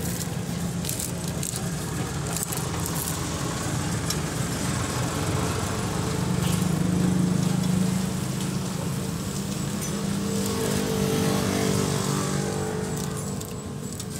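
Ford 3600 tractor's three-cylinder engine running steadily at idle, getting louder for a couple of seconds in the middle and again briefly a few seconds later.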